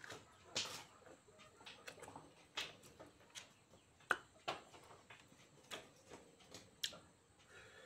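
A person eating soft fruit flesh: irregular wet mouth clicks and smacks of biting and chewing, with a couple of sharper clicks.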